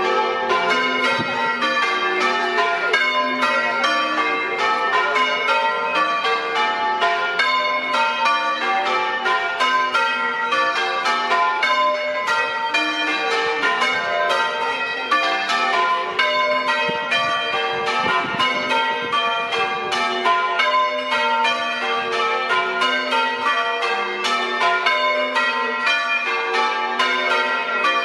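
Church bells rung by hand from ropes in the tower, change ringing: the bells strike one after another in a rapid, unbroken sequence.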